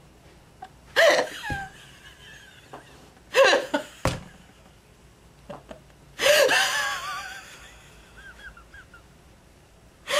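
A person laughing hard in three loud, high-pitched bursts about a second, three and a half seconds and six seconds in. The last burst is the longest and trails off.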